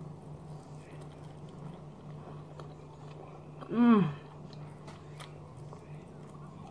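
A person biting into and chewing a barbecue chicken wing, with faint wet clicks and smacks of mouth and fingers. About four seconds in, a short hummed 'mmm' falling in pitch.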